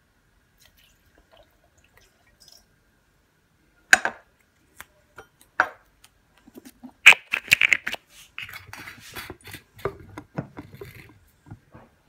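Mostly quiet for about four seconds, then two sharp clicks, then a busy run of clicks, clinks and rattles from about seven seconds in as glassware and bar tools are handled.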